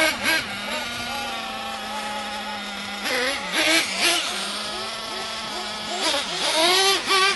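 Small two-stroke engine of a radio-controlled car running at a steady high pitch, then revving up and down in quick bursts about three seconds in and again near the end as the throttle is worked.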